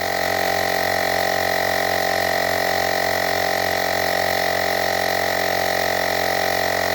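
Battery-powered portable tyre inflator running steadily, its small electric motor and piston pump pumping air into a motorcycle tyre with an even, many-toned mechanical hum.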